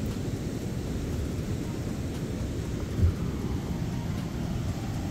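Steady low rumble of wind buffeting the microphone, with one dull thump about three seconds in.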